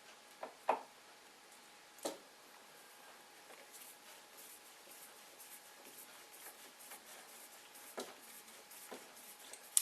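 A few sharp clicks and faint scraping ticks as a wood screw is driven down through a washer.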